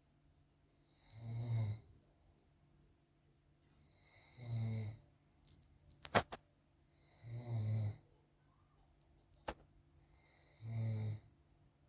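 A man snoring in his sleep: four snores, one about every three seconds. A couple of sharp clicks sound between them, past the middle and again later.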